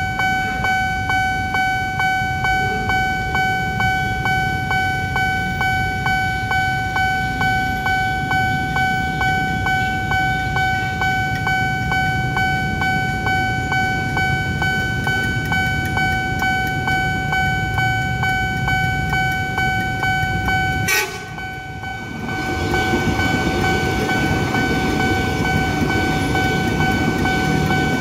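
Level-crossing electronic warning alarm sounding from its loudspeaker: a steady high tone pulsing about twice a second. About 21 seconds in the sound breaks off briefly, then the rumble of a passing Soekarno-Hatta Airport Rail Link electric train joins the alarm.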